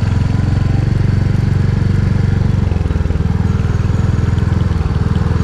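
Royal Enfield Hunter 350's single-cylinder engine running at low speed as the motorcycle rolls along, a steady low pulsing exhaust note.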